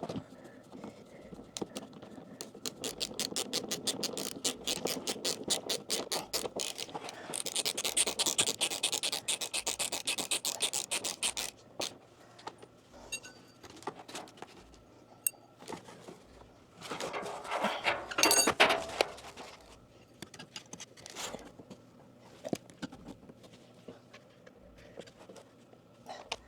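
Hand-tool work on plumbing fittings: a long run of rapid scratchy clicks for several seconds, then a louder scrape about two-thirds of the way through.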